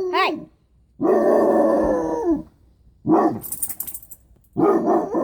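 Dog barking and howling: about four loud calls with pitch that bends up and down, the longest a drawn-out call of over a second that falls in pitch at its end.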